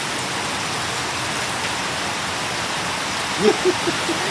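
Steady heavy tropical rain pouring down almost straight with little wind: a constant, even hiss. Near the end, a few short voice-like sounds rise briefly over it.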